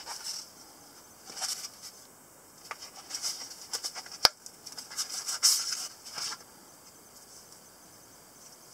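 Nylon holster-style sheath rustling and scraping in the hands as a pistol-shaped folding knife is drawn out of it, in several short bursts, with one sharp click about four seconds in. The handling stops about six seconds in.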